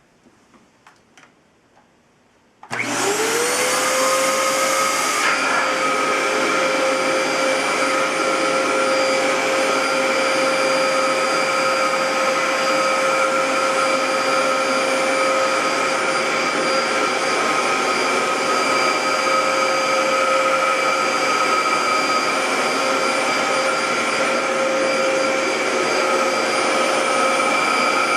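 Dyson DC07 upright vacuum cleaner switched on after a few light clicks: its motor spins up with a rising whine, then runs steadily with a high whine over rushing air.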